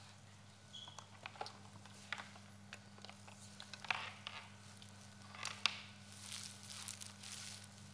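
Quiet handling noises: scattered clicks and brief rustles as loose strips of tape shift and equipment on a table is touched, over a steady low hum.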